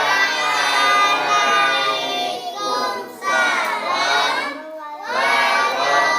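A large group of children chanting the reply to a Muslim greeting together, "Wa'alaikumussalam", in long drawn-out, sing-song syllables, in three long phrases.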